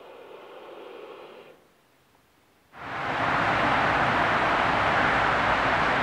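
A held accordion chord that stops about a second and a half in. After a moment of near silence, a loud steady rushing noise of outdoor ambience cuts in suddenly about three seconds in.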